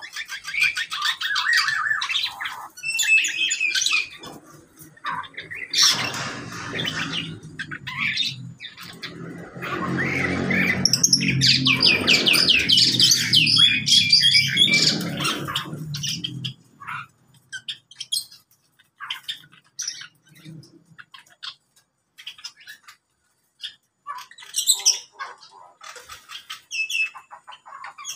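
A mixed flock of caged aviary birds, including lovebirds, Java sparrows and cockatiels, squawking and chirping in rapid chattering runs. A low droning hum rises behind the birds for about ten seconds in the middle and then fades, leaving only scattered calls near the end.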